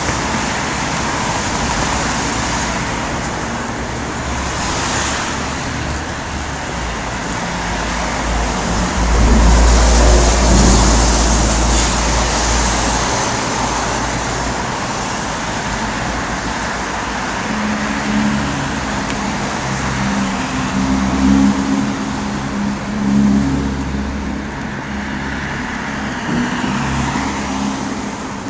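Steady rain hiss mixed with road traffic. A vehicle passes about ten seconds in, swelling louder with a low rumble and then fading back into the rain.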